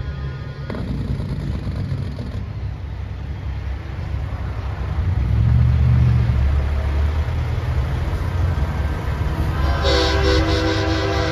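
Diesel semi-trucks rumbling past in a convoy, loudest about halfway through, then an air horn blast starting near the end.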